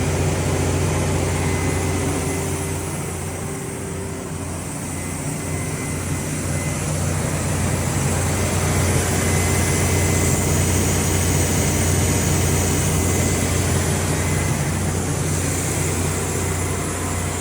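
Cummins QSX15 inline-six diesel engine of a 500 kW standby generator set running steadily at its governed speed, a deep even drone; the sound dips a little a few seconds in, then comes back up.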